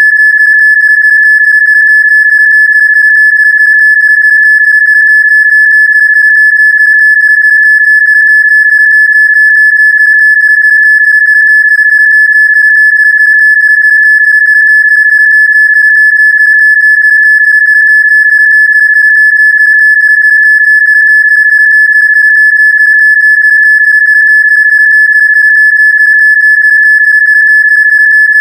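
Rife frequency tone: a loud, steady, high-pitched electronic tone held at one unchanging pitch, with faint higher overtones.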